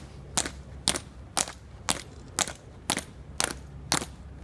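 Marching cadence of a ceremonial color guard: sharp, evenly spaced beats about two a second, in quick time.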